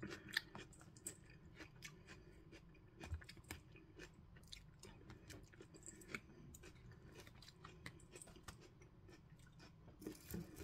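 Faint chewing and wet mouth clicks of someone eating a creamy mushroom salad, with a few slightly louder clicks here and there.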